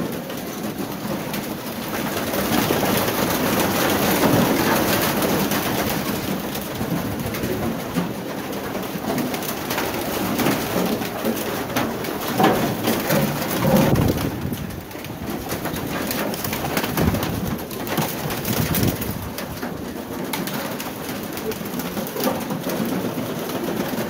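A large flock of domestic pigeons cooing all together in their loft, with wings flapping as birds fly about.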